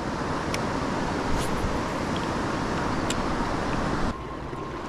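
Steady rush of whitewater river rapids, with a few light clicks over it. About four seconds in, the rush drops away to a quieter water sound.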